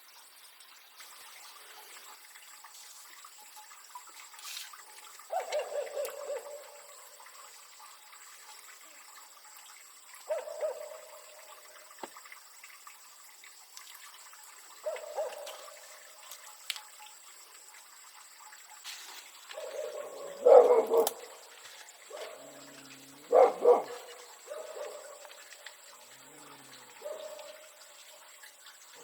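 A dog barking in single woofs spaced several seconds apart, with a quicker cluster of barks about two-thirds of the way through.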